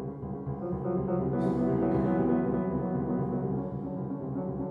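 Solo grand piano playing a dense, sustained passage low in the keyboard, with the notes ringing together; a louder struck chord about a second and a half in rings on over it.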